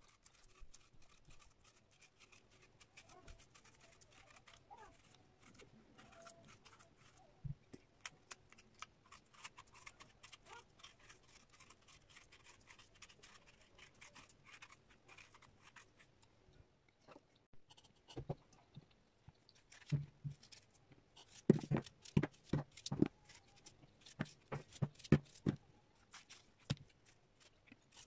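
Small knife paring the skin off a persimmon: faint scraping and soft clicks. In the last third come louder, sharper knocks as the peeled fruit is cut into slices and the pieces drop into a metal tray.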